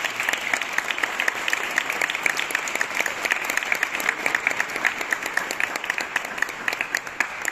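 Audience applauding: steady, dense clapping, with a few sharper nearby claps standing out.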